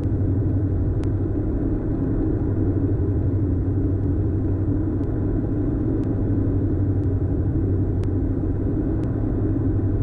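Steady cabin drone of a Diamond DA42's twin engines and propellers in flight, an even low hum that holds at one level.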